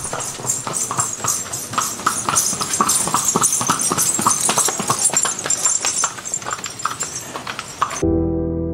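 A horse pulling a cart, its hooves clip-clopping in a quick, irregular run of knocks on a packed-sand street. Near the end it cuts suddenly to soft electric piano music.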